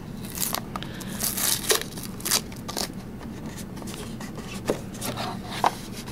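Hands handling a trading-card box and its foil-wrapped packs. There are scattered scrapes, short sharp clicks and brief crinkles of foil.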